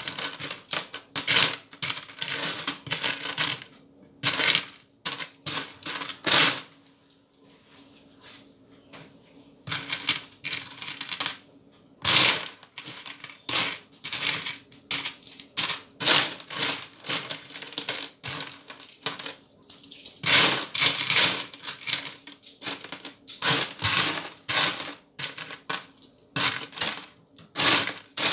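A heap of small copper-coloured euro cent coins clinking and rattling against each other and a plastic bowl as hands rake through and pick them out, in quick irregular clusters of clicks, with a quieter stretch about seven to ten seconds in.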